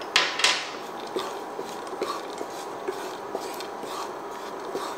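A wooden spatula stirs and scrapes slivered almonds and pine nuts around a dry nonstick pan, making scattered light taps and clicks. Two sharper knocks come just after the start. A faint steady tone runs underneath.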